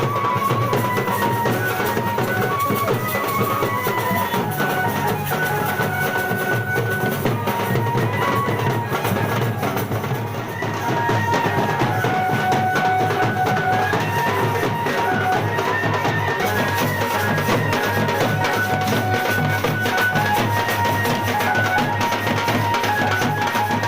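Music with dense, steady drumming and a melody of held notes stepping up and down.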